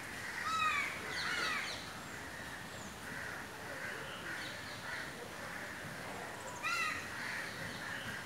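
Short, harsh, caw-like animal calls, each bending down in pitch: a few in the first two seconds and another quick cluster near the end, over a steady background hiss.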